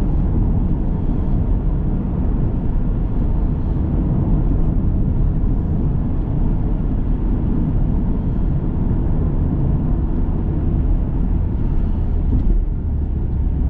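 Steady engine and tyre noise heard from inside a moving car's cabin, a low rumble with no clear beats.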